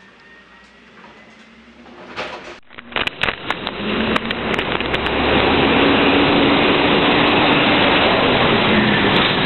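Heil rear-loader garbage truck's diesel engine running as the truck draws up close, growing louder over a couple of seconds, then holding a steady, heavy drone with a low hum. A few sharp clicks sound as it nears.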